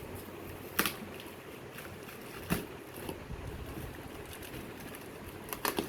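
Handling of a water heater's cardboard packaging as the box is opened: a few sharp knocks or clicks, one about a second in, one midway and a close pair near the end, over a low steady background noise.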